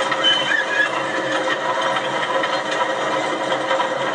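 Steady running noise of a ride on a miniature railway train, with a few short high squeals in the first second.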